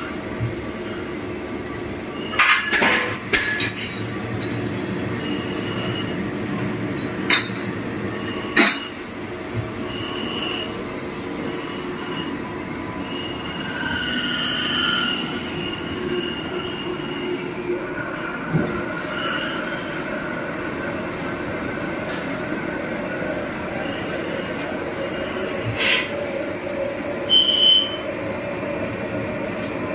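Steady machinery noise of a CNC machine shop, broken by sharp metallic clicks and knocks and a few short high tones, with one thin high tone held for several seconds in the second half.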